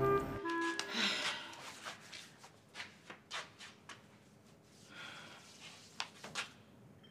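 A short music cue cuts off about half a second in. After it come faint, scattered breaths and sighs from a woman, with soft rustles.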